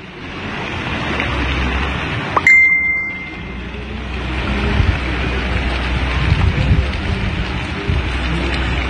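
Outdoor background noise with a low rumble, broken about two and a half seconds in by a single short, high bell-like ding.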